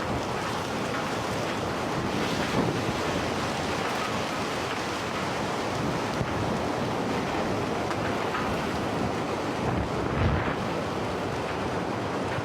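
Steady rush of water with wind buffeting the microphone, and a brief low bump about ten seconds in.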